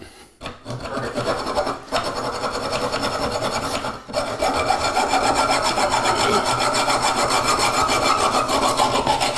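Hacksaw cutting through a metal toilet closet bolt: fast, steady back-and-forth strokes of the blade on metal, broken by two or three brief pauses.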